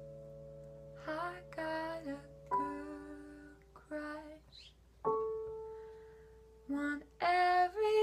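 A woman singing slowly in short phrases over held keyboard chords that ring out and fade. A new chord is struck about five seconds in.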